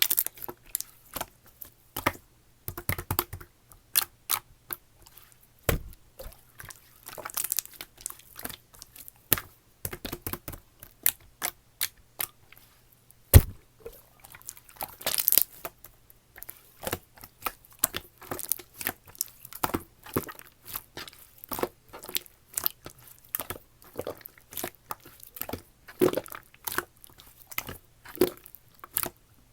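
Runny slime being pressed, poked and stretched by hand, making irregular sticky clicks and pops, several a second, with a few louder snaps.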